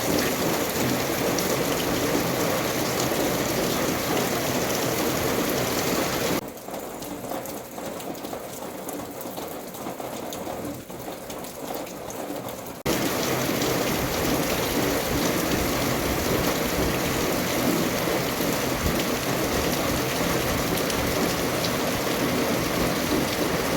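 Steady rain falling, an even hiss, which abruptly turns quieter for about six seconds in the middle and then comes back at full strength.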